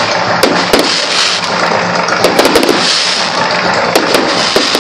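Aerial fireworks bursting: a dense, irregular run of sharp bangs and crackles over a continuous rumbling roar.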